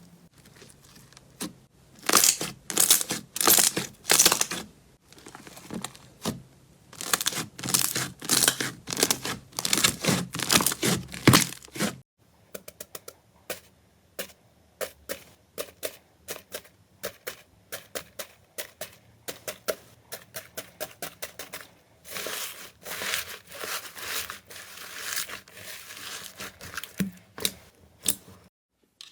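Slime being pressed, poked and squeezed by hand, giving repeated crinkly, crackling bursts. About twelve seconds in the sound changes to a run of sharp clicks and pops, with denser crackling again later on.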